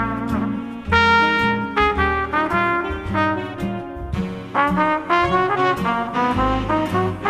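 Big band jazz ballad, a brass section of trumpets and trombones playing a melody in chords.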